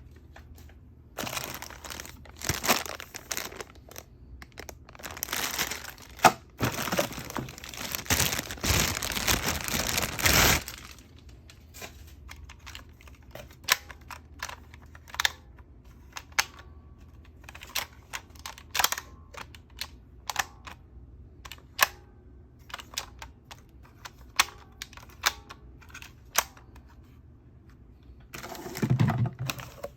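Toy packaging being opened by hand: plastic and cardboard crinkling and tearing for about the first ten seconds, then scattered small clicks and knocks as plastic pieces are handled, with another rustle near the end.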